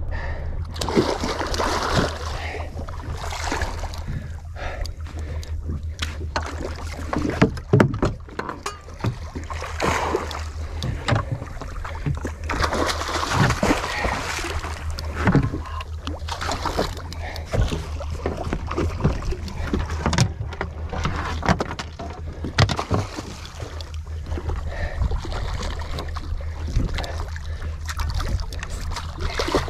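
Small fishing boat at sea: a steady low hum under wind and water noise, with irregular knocks and clicks.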